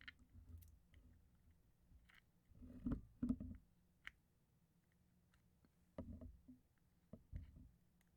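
Faint, scattered knocks and clicks of small parts being handled on a workbench, the loudest pair about three seconds in, with near silence between.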